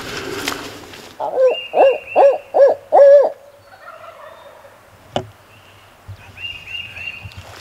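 A loud series of five barred-owl-style hoots, each rising and falling, close at hand: an owl locator call used to make gobblers answer. A wild turkey gobbles faintly in the distance, overlapping the first hoots and again near the end.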